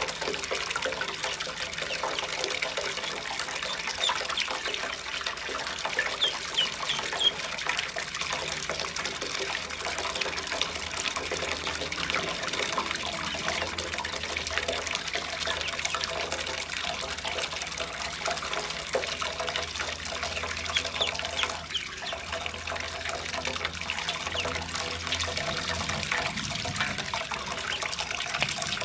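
A stream of water pouring from a pipe into a shallow metal basin of water, a steady splashing and trickling as ducklings paddle in it, with a few faint high duckling peeps now and then.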